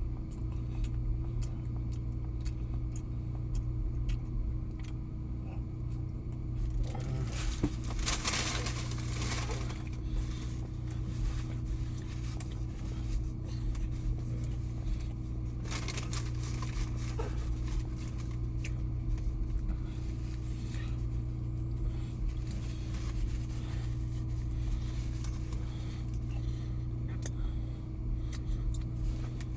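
A steady low hum, with rustling of the burger's paper wrapper about seven seconds in and again around sixteen seconds.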